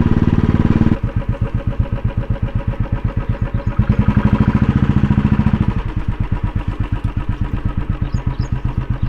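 Motorcycle engine running at low revs with an even chug of firing pulses. It grows louder from about four to six seconds in, then settles back.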